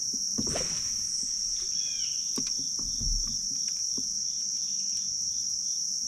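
Steady, high-pitched drone of an insect chorus. A short falling bird chirp sounds about two seconds in, and there are a few soft knocks.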